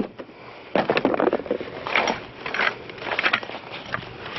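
Junk being handled and moved about: a few short clunks and rattles, roughly a second apart.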